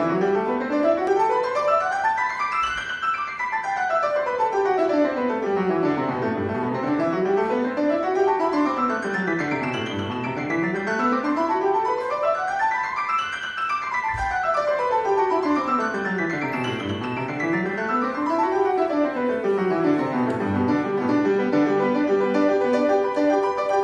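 Grand piano playing fast scales that sweep up and down over several octaves. The two hands run first in parallel and then in contrary motion. Near the end the runs give way to chords.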